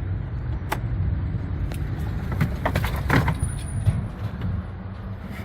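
2018 Chevy Express van's starter engaging by itself and turning the engine slowly, a low steady churn with a few sharp clicks, the sign of a dead battery that cannot crank it properly.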